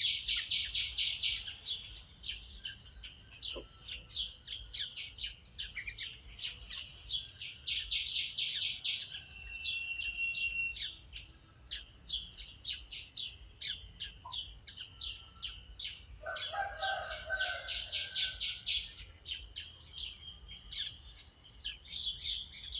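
Pied fantail calling: fast chattering runs of high notes, each about a second and a half long, at the start, around eight seconds in and again near eighteen seconds, with scattered single chips and a short steady whistle between them. A lower, rougher call from another animal comes in briefly about sixteen seconds in.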